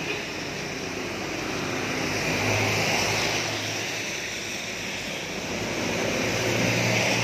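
Traffic passing on a wet road: tyres hissing on the wet asphalt under the engine noise of a passing jeepney and motorcycle tricycles. The sound swells about two to three seconds in and again near the end.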